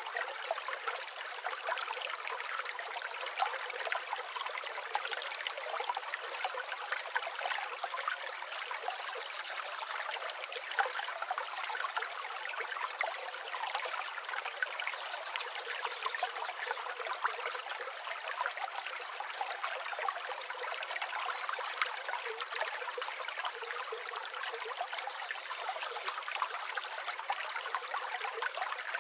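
River water flowing steadily, a dense babbling and trickling rush with no low rumble beneath it.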